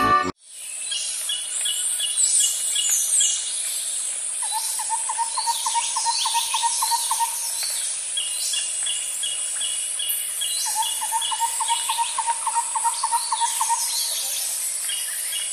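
Tropical forest ambience: a steady high-pitched insect drone, with birds calling in runs of short repeated chirps and quick downward-sweeping notes. Twice a lower rhythmic trill of evenly pulsed notes lasts about three seconds.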